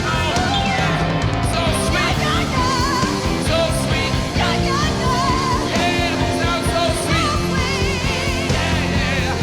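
Live rock band playing, with a singer holding long, wavering notes over the full band.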